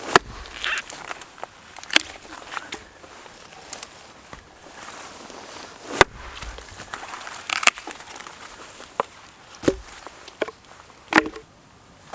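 Scattered sharp knocks and clatters of camp gear being handled, irregularly spaced, with the loudest just after the start, about six seconds in, and near the end.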